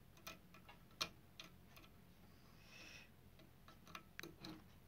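Near silence broken by a few faint, irregular clicks of multimeter test-probe tips touching and scraping on a geyser thermostat's screw terminals.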